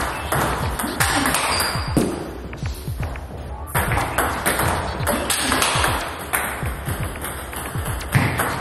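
Table tennis rally: a plastic ball repeatedly clicking off rubber-faced paddles and bouncing on the table in a fast counter-hitting exchange against hard drives.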